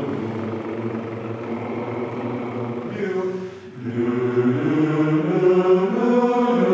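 Men's barbershop chorus singing sustained chords as a vocal warm-up, breaking off briefly about three and a half seconds in and coming back in on shifting chords.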